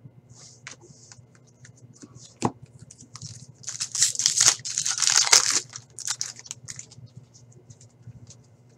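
Foil hockey card pack being torn open and crinkled by hand, loudest a few seconds in, with lighter rustling of the wrapper and cards before and after.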